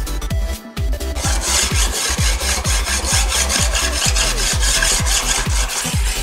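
Sharpening stone rubbed back and forth over the steel of a machete made from a lawn mower blade, a scraping rasp that grows louder about a second in. Electronic dance music with a steady kick drum plays underneath.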